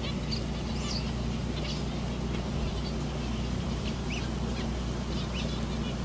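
A flock of zebra finches calling with many short, high chirps scattered throughout, over a steady low hum.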